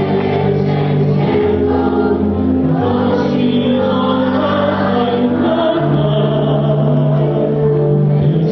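Stage musical number: a chorus of voices singing together over music, on long held notes that change a couple of times.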